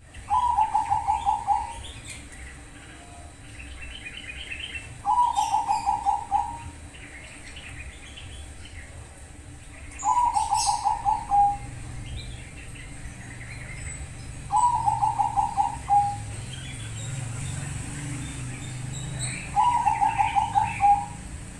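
Zebra dove (Bangkok-strain perkutut) singing its cooing phrase five times, about every five seconds: each phrase a fast run of staccato notes ending in a longer, lower note. Faint chirping of other small birds can be heard between the phrases.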